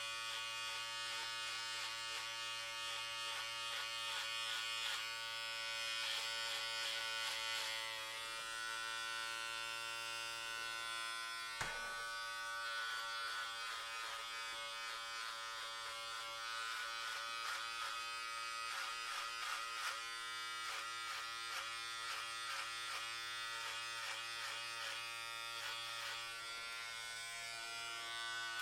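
Electric hair clippers running with a steady buzz, the tone shifting slightly about eight seconds in, and a single sharp click a little before the middle.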